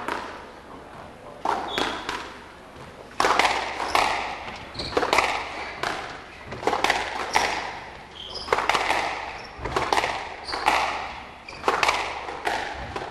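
Squash rally: the ball struck by rackets and smacking off the court walls every half second to a second, each hit echoing in the court, with short squeaks of shoes on the wooden floor in between.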